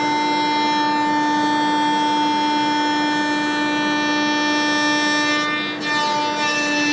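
CNC router spindle with a 1-inch spoilboard surfacing bit running at about 18,000 RPM, a steady high whine. The tone dips briefly and shifts near the end.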